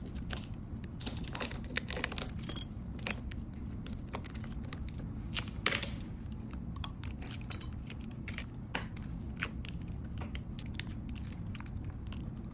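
Shattered back glass of an iPhone XR being scraped and pried off the phone's frame with a small blade: irregular sharp clicks, crackles and tinkles of breaking and loosening glass shards, over a steady low hum.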